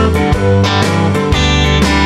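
Background music: a guitar-led track with plucked and strummed strings and a steady beat.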